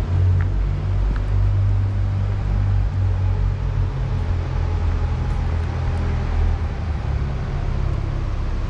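Steady, loud low rumble of machinery running in a workshop hangar.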